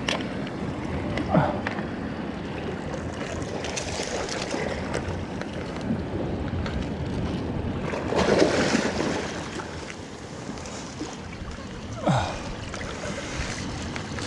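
Ocean waves washing and wind buffeting the microphone, a steady rush that swells a few times.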